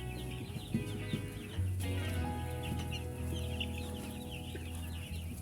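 A flock of three-day-old broiler chicks peeping continuously, many short high chirps overlapping, over a steady background music bed.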